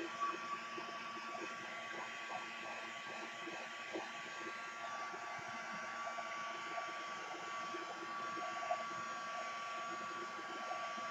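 Handheld craft heat tool blowing steadily to dry wet paint on a paper page: a rush of air with a steady high whine from its fan.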